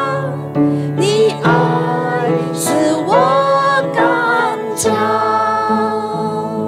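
A woman singing a Chinese-language worship hymn into a microphone, holding long, wavering notes over instrumental accompaniment.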